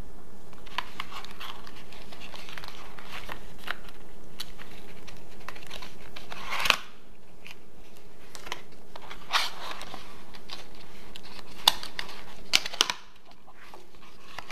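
Cardboard box packaging being handled: rustling, scraping and light clicks as the paperboard insert is lifted and pulled apart, with a sharper knock about seven seconds in and a few quick clicks near the end.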